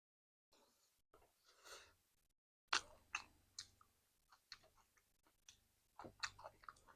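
Close-miked chewing of curry, meat and rice: wet mouth clicks and lip smacks, irregular, starting a little under three seconds in after a soft breath.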